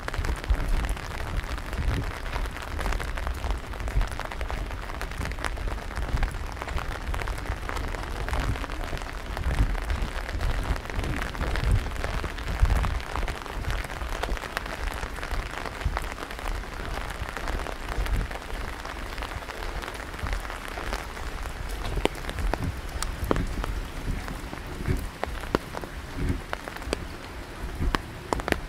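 Steady rain falling and pattering on surfaces, with many individual drops ticking sharply and a low rumble underneath.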